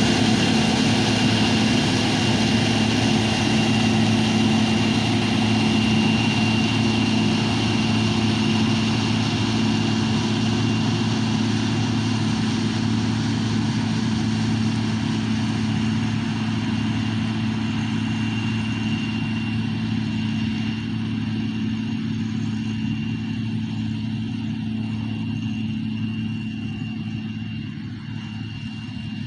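John Deere Hillmaster combine running steadily, an engine drone with a thin high whine over it, growing gradually fainter toward the end.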